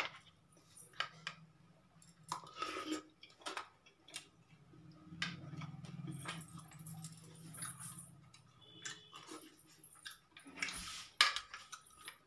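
Quiet eating sounds: a spoon clinking and scraping on a plate, and chewing, as dahi vada is tasted. A faint low hum runs underneath.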